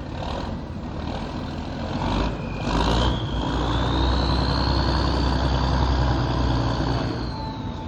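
Tugboat diesel engine throttled up under load. A deep rumble swells about three seconds in, with a high whine that rises and holds, then falls away near the end.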